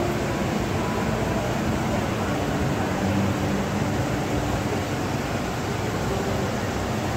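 Steady hubbub of a busy indoor exhibition hall: an even hum with faint, indistinct voices in the background.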